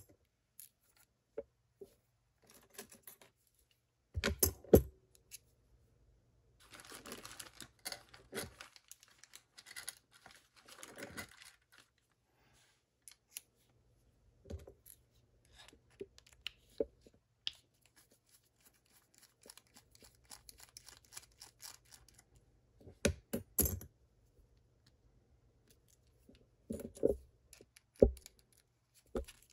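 A lock being taken apart by hand: scattered metallic clicks and knocks, with a stretch of scraping and rustling about 7 to 12 seconds in.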